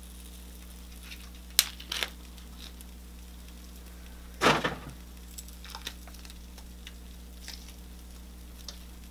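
Cooked lobster tail shell cracking and crunching as it is pulled apart by hand. There is a sharp crack a little after a second and a half, a longer crunch about halfway through, then a few light clicks, all over a steady low hum.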